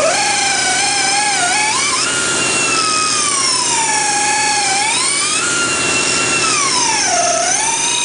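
Handheld rotary grinder cutting rubber out of a damaged OTR tyre's crater to prepare it for vulcanising: a high whine that sags in pitch as the cutter bears into the rubber and climbs again as the load eases, several times over, dipping deepest near the end.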